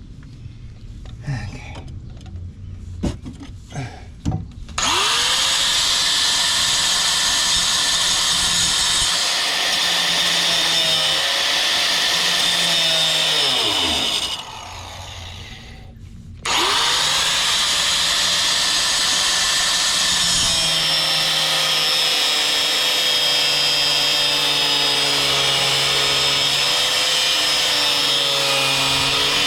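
Angle grinder cutting through a steel coil spring. A few knocks and clicks come first, then about five seconds in the grinder runs loud under load, its pitch sagging and recovering as it bites. It winds down and stops for about two seconds near the middle, then spins back up and cuts again.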